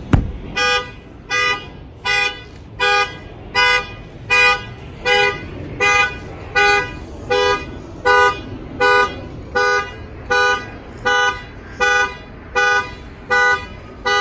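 A knock on the Ford F-150's window glass sets off its factory alarm through the added shock sensor: the truck's horn honks in steady, even pulses, a little faster than one a second.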